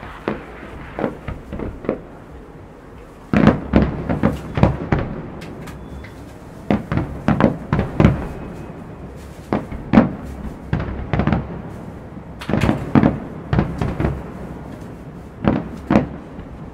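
A fireworks display with aerial shells bursting. The booms come in quick volleys every couple of seconds, with short lulls between them. The first few seconds are lighter, and a heavy volley starts about three and a half seconds in.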